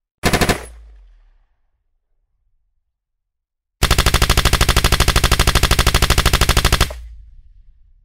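Automatic rifle fire: a short burst of a few rounds that dies away. After about two seconds of quiet comes a long burst of about three seconds, with rapid, evenly spaced shots at roughly a dozen a second. It stops abruptly and leaves a low echoing rumble.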